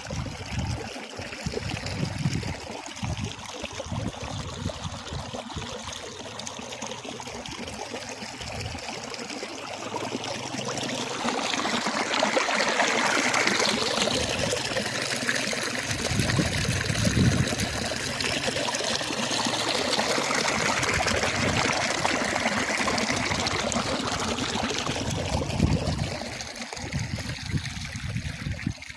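Water running and trickling in a small stream, a steady rushing that grows louder through the middle and eases near the end, with low rumbling underneath.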